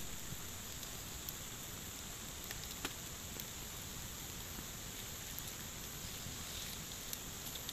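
Campfire of burning logs crackling, with a few scattered sharp pops over a steady hiss of water from rain and a flooded river.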